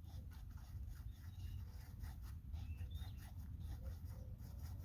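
Small wooden stick scraping and stirring two-part plastic adhesive on a piece of cardboard, a faint run of quick, irregular scratchy strokes.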